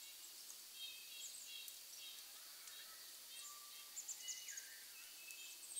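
Faint outdoor ambience with scattered high bird chirps and calls, including one short falling call about four seconds in.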